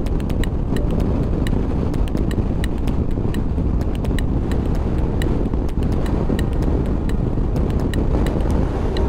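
Motorcycle riding at road speed: wind buffeting the microphone over the engine and tyre noise, with frequent short sharp ticks a few times a second.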